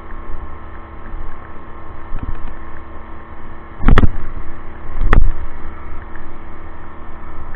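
72V 3000W Cyclone hybrid ebike under way: a steady mechanical hum of its drive, with two loud thumps about four and five seconds in.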